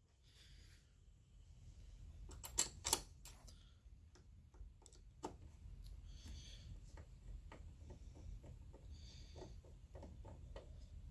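Clamp on a massage chair's leg rest being closed: a loud cluster of sharp clicks about two and a half to three and a half seconds in, then a run of fainter ticks and knocks from handling the parts.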